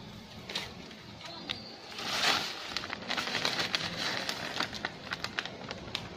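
Pot of water at a rolling boil, hissing steadily, with a louder hiss about two seconds in. From about three seconds on, a run of quick, irregular clicks and crackles as dry spaghetti is dropped into the boiling water.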